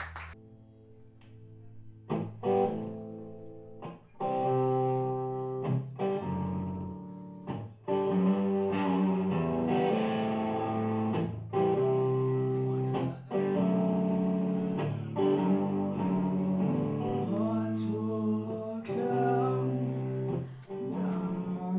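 Live rock band playing: electric guitar notes ring out quietly at first, with a few sharp hits. About eight seconds in, the full band comes in, much louder, with bass and guitar.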